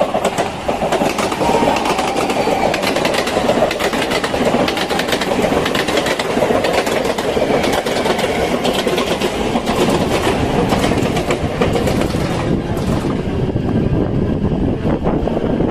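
Loud, continuous rattling and rushing of a vehicle in motion, with many rapid clicks running through it.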